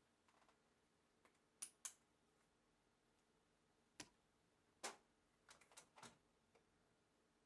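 Faint, sharp clicks and taps from small hand tools and metal parts being handled while a Fluke 732A voltage reference is taken apart. There are two clicks close together about one and a half seconds in, single ones near four and five seconds, and a quick cluster around six seconds.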